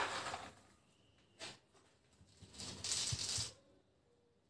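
Chocolate chips being scattered by hand onto cake batter in a bowl: a soft pattering lasting about a second, preceded by one light tap.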